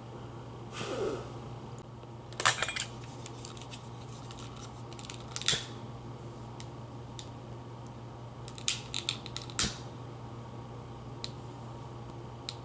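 Sharp clicks from a long-neck utility lighter being worked in the hand: a short burst about two and a half seconds in, single clicks scattered through the middle, and a quick run of clicks around nine to ten seconds. A short breathy mouth sound comes about a second in, and a steady low hum sits underneath.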